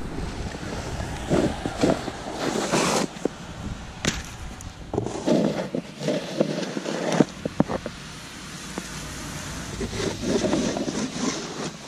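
Snow shovels scraping and pushing snow along a sidewalk in a few long strokes a few seconds apart, with sharp clicks of the blades on the pavement.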